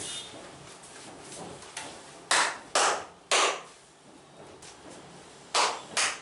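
Hands striking the body in loud, quick massage slaps: three about half a second apart, then two more near the end.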